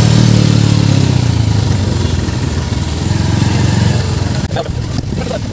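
Motorcycle engine running at low speed, heard from the rider's seat, its sound easing off about four seconds in.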